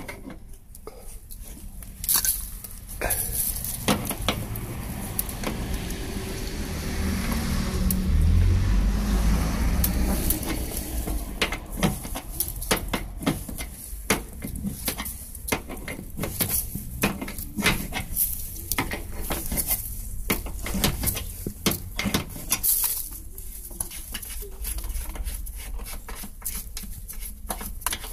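Metal tools and fittings clinking and knocking in scattered taps and clicks as the refrigerant piping is unscrewed from an air conditioner's outdoor unit. A low rumble swells for a few seconds in the middle.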